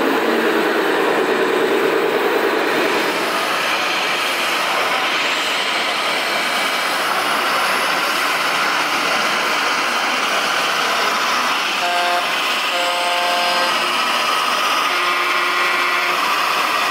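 Remote-controlled scale model trucks running, a steady mechanical hum and rumble of motors and sound modules over hall noise. A few short repeated beeps sound about twelve seconds in.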